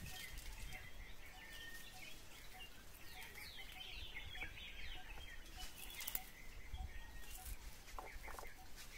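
Wild birds calling, one of them repeating a short low note about twice a second, with a flurry of high chirps in the middle. A few soft crackles near the end.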